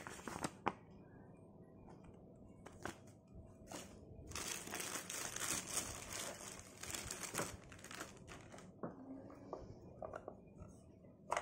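Clear plastic packaging bag crinkling steadily for about four seconds in the middle as an electric iron is pulled out of it. Light handling clicks and knocks come near the start and again near the end.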